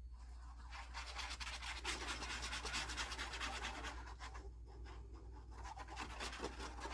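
Quiet, rapid scratchy rubbing on paper and cardstock while a cardstock cover is being glued and pressed down, in two stretches with a short let-up in the middle.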